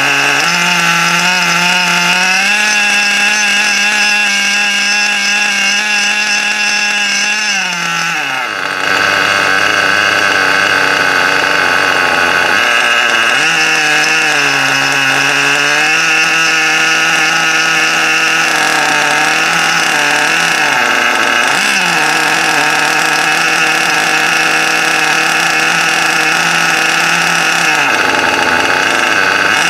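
O.S. RG .21 nitro engine running in an RC car on its first break-in heat cycle, its piston pinch still very tight. It runs fast and steady, its pitch rising about two seconds in, sagging around eight seconds, then holding a little lower with small dips.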